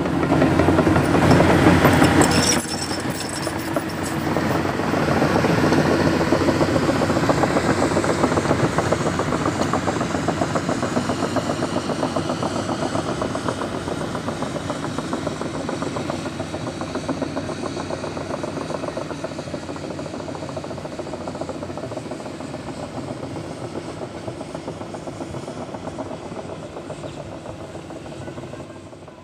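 Heavy diesel machinery running with a rapid, even clatter, loud at first and then slowly fading as it moves away.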